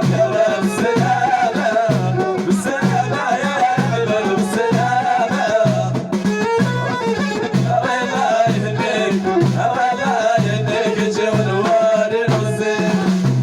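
Amazigh folk music: a wavering melody over a steady, repeating low beat.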